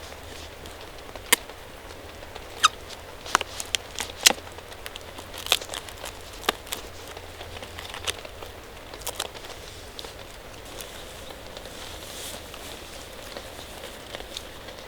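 Steady rain hiss with irregular sharp taps and ticks, about a dozen, mostly in the first ten seconds.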